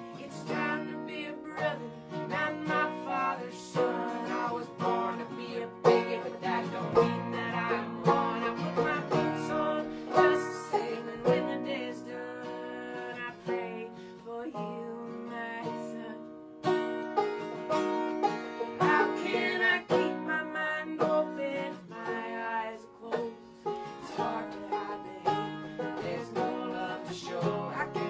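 Acoustic guitar strumming and a banjo picking together, playing a folk tune with quick, steady plucked notes.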